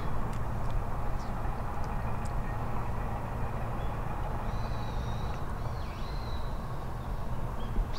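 Open-air background ambience: a steady low hum with a faint even hiss, and a few faint high chirps about halfway through.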